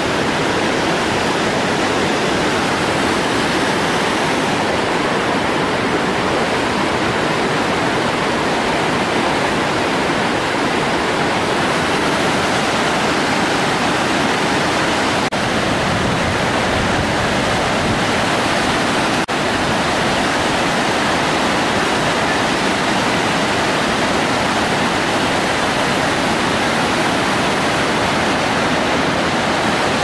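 Loud, steady rush of a large waterfall in heavy flow, the Chaudière Falls, with white water churning below.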